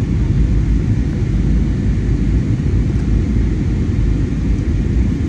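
Steady low rumble of an Airbus A320 airliner in flight: engine and airflow noise, even and unchanging.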